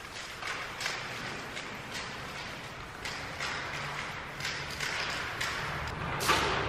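A string of short hisses and scuffs, a few a second, from aerosol spray-paint cans and feet on a gritty concrete floor. Near the end comes a louder splash as paint thrown from a bucket hits the wall.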